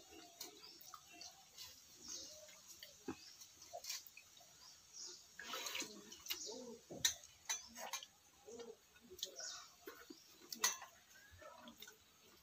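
Close eating sounds of a person eating pakhala, watery fermented rice: wet chewing and mouth smacking, with scattered sharp clicks.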